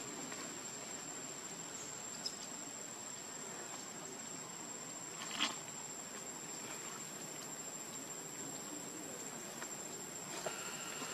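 Steady high-pitched insect drone, one unbroken tone, over soft outdoor hiss, with a single short click about five seconds in.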